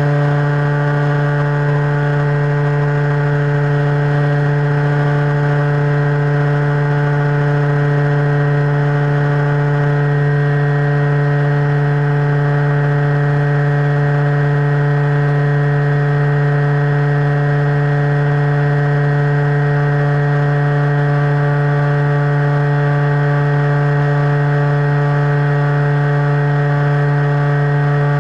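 Radio-controlled FPV airplane's motor and propeller, heard through the plane's own onboard camera, running at a steady throttle in cruise: a loud, unchanging hum with a stack of overtones.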